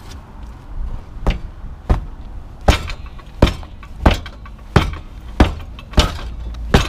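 A boot kicking a VW Golf Mk4 steel lower suspension arm about ten times, sharp knocks a little over one a second, louder from about a third of the way in, to force the new arm into place.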